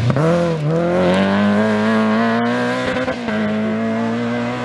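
Rally car's engine under hard acceleration as it pulls away out of a corner: the pitch dips twice in the first second, at the gear changes, then climbs slowly and steadily as the car draws away.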